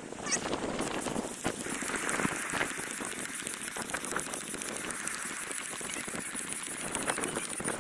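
Hand pump worked in strokes to inflate an inflatable kayak, air hissing through the hose into the chamber.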